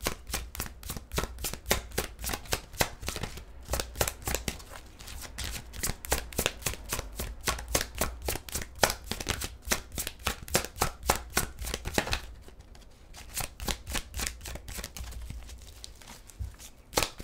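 Tarot cards being hand-shuffled overhand: a quick run of soft card slaps and clicks, several a second, pausing briefly about twelve seconds in and thinning out near the end.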